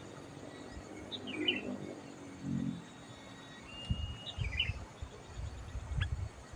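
Sooty-headed bulbul (kutilang) calling: two short chattering phrases about three seconds apart. Low muffled thumps come in the second half.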